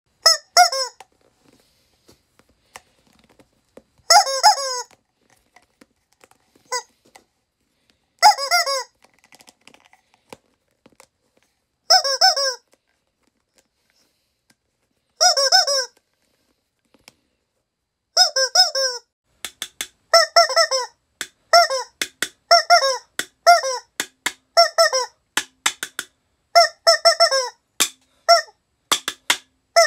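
Rubber chicken squeeze toy squealing: single long squawks about every four seconds, then a fast run of short squeaks from a little past halfway.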